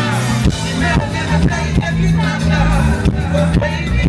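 Loud live band music with a steady beat and heavy bass, with some singing over it.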